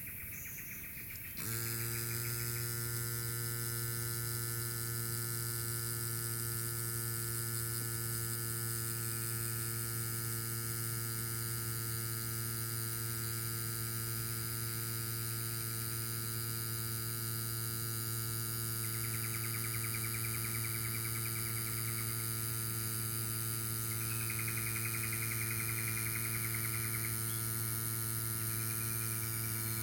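Cycplus AS2 Pro Max mini electric tyre pump inflating a motorcycle tyre: its motor and compressor hum steadily, starting about a second and a half in.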